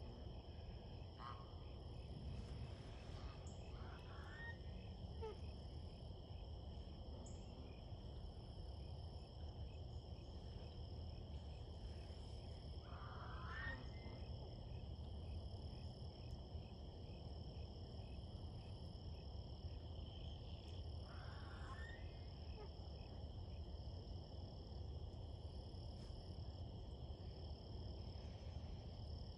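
Faint, steady high-pitched trilling chorus of frogs around a pond, with three short rising calls about eight seconds apart.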